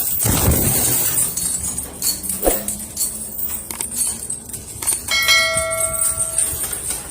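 A single bell-like metallic ring about five seconds in, with several overtones, dying away over about a second and a half.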